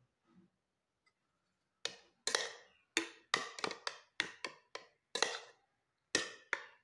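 Steel spoon stirring curd and aloe vera gel in a bowl, knocking against the bowl's sides in a run of quick, uneven taps. The taps start about two seconds in, about a dozen in all.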